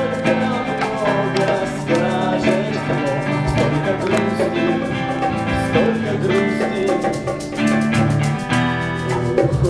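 Music: a song with guitar, in a stretch without sung words.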